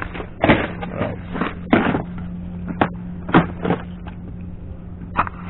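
Clear plastic tackle box being handled and its lid flipped open, giving a string of short plastic knocks and rattles of the lures inside, over a steady low hum.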